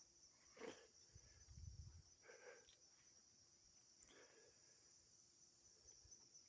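Faint steady high-pitched insect chorus, with three faint short bird calls about two seconds apart.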